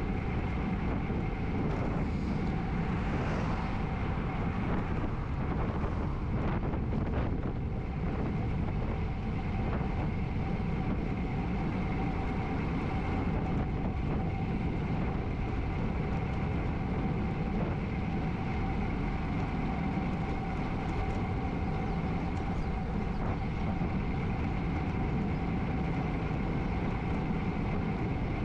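Road bike riding along: steady wind rush on the action-camera microphone over the rumble of tyres on the road, with a faint steady whine running through it.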